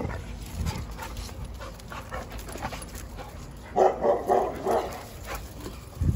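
Alapaha bulldog puppies at play. One barks a quick run of about four barks about four seconds in, with a few fainter ones earlier.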